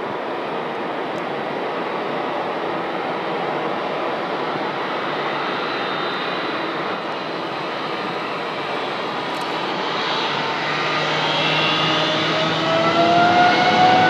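Jet engines of a Boeing 777 twin-engine airliner running on the runway with a steady rush of jet noise. From about ten seconds in, a rising whine and growing loudness show the engines spooling up to higher thrust.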